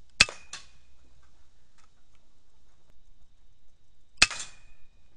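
Two shots from an FX Impact .22 pre-charged air rifle about four seconds apart, each a sharp crack with a short tail; the first is followed by a second, softer crack about a third of a second later.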